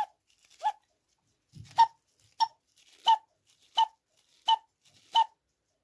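Low-note bellows pipe of a cuckoo clock, freshly repaired with a patch of plastic bag, pumped by hand so that it gives a run of eight short whistling toots on one note, a little under a second apart. The pipe is sounding again after the repair.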